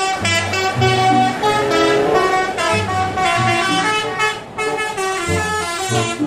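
Indonesian bus's multi-tone musical horn (a "telolet" horn) playing a quick tune, the pitch jumping from note to note with several notes sounding at once.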